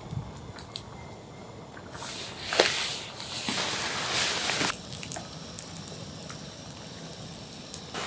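Fabric rustling for nearly three seconds, starting about two seconds in, with a few faint clicks around it.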